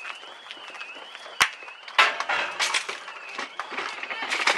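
An alarm wailing up and down in pitch, a little more than once a second, over the crunching and clinking of broken glass underfoot, with a sharp crack about one and a half seconds in.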